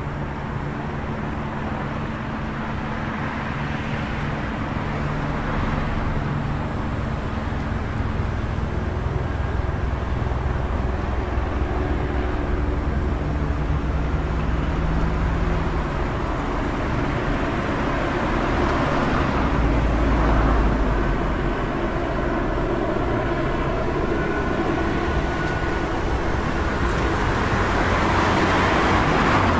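City street traffic: a steady wash of engine and tyre noise with low engine hum, as cars pass one after another, the loudest passing about two-thirds of the way through and another building near the end.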